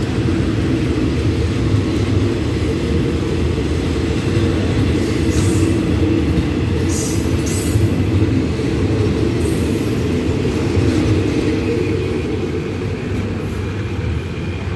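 Passenger coaches of a departing ordinary train rolling past on the track: a steady low rumble of wheels on rails, with brief high wheel squeals several times midway. The rumble eases a little near the end as the last coach draws away.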